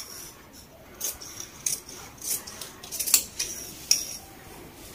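Scissors cutting through blouse lining fabric: about eight short, crisp snips, unevenly spaced.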